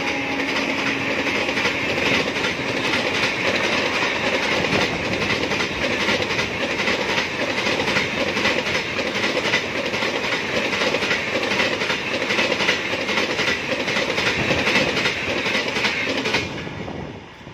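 Jan Shatabdi Express passenger coaches rushing past close at speed: a loud, steady rumble with a rapid clickety-clack of wheels on the rails. The tail of the locomotive's horn, falling in pitch, fades in the first second, and the train noise drops away suddenly near the end as the last coach passes.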